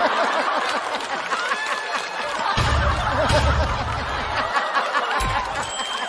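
Studio audience laughing. About two and a half seconds in, a deep bass-heavy music sting comes in for about two seconds, with a shorter low hit near the end.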